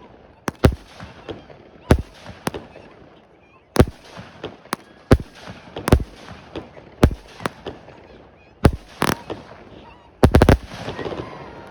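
Consumer fireworks going off: about a dozen sharp bangs at irregular intervals, then a quick run of four or five bangs about ten seconds in.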